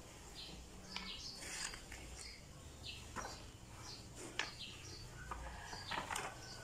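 Faint rustling of paper as the pages of a printed manual are handled and turned, with a flip near the end. Small birds chirp in the background.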